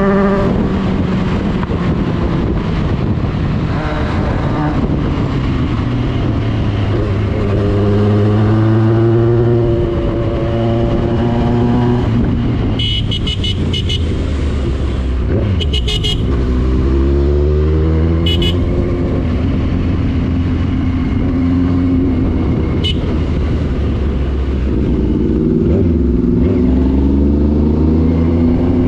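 Motorcycle engine under way, rising in pitch several times as it accelerates through the gears and dropping as it eases off, with wind rushing over the microphone. A few short horn-like toots around the middle.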